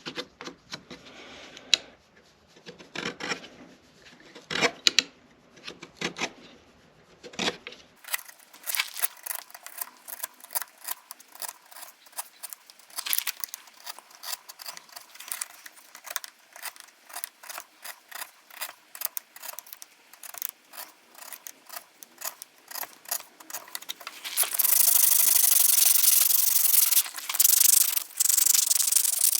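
Hand tools working a wooden comb. First come short rubbing strokes on the wood, several a second. About three-quarters of the way in, these give way to louder, continuous sanding.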